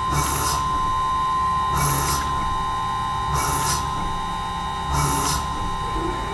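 Kennametal HPR carbide drill in a CNC mill-turn spindle at about 4,200 RPM drilling holes in a cast iron brake rotor, dry: a steady spindle whine with a short cutting burst about every one and a half seconds, four in all, as the drill plunges into each hole.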